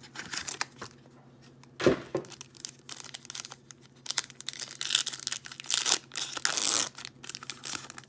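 Foil wrapper of a trading-card booster pack being crinkled and torn open, with a knock about two seconds in.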